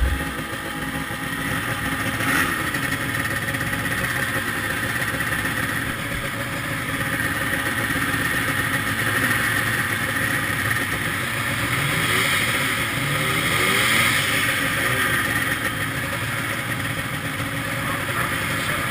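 Several two-stroke snowmobile engines running together at idle on a starting line, the nearest a 1974 Rupp Nitro 340. Now and then one is revved briefly, and its pitch rises and falls, mostly in the middle.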